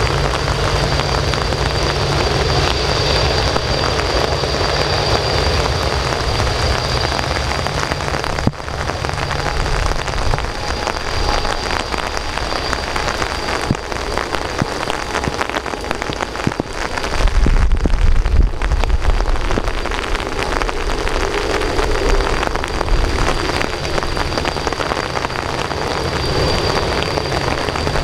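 Steady hiss of heavy rain over the low rumble of a Boeing 787-8's Rolls-Royce Trent 1000 jet engines at low power as the airliner taxis on a wet runway, with a thin high steady tone above it. The rumble fades about a third of the way in and returns louder a little past halfway.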